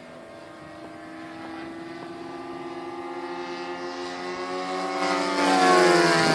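Radio-controlled scale warbird models flying by, their engines running steadily and growing louder as they approach. Near the end the pitch drops as they pass close.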